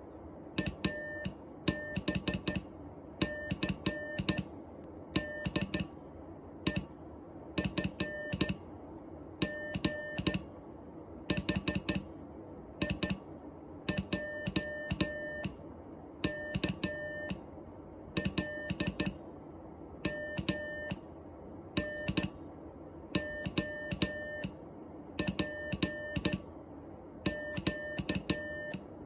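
Morse code sent as electronic beeps at one steady pitch, the letters of the alphabet in turn: each letter a short group of short and long beeps, about one letter every second and a half, over a steady low background hum.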